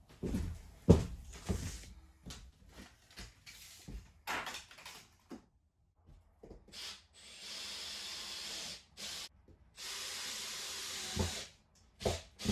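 Knocks and clatters of tools and materials being handled, then two steady hisses of about a second and a half each, one about seven seconds in and one about ten seconds in.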